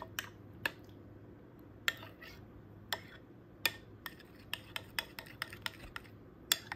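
A metal utensil stirring cocoa powder into a yogurt and egg batter in a glass bowl, clinking and tapping irregularly against the glass. The clinks come more often in the second half.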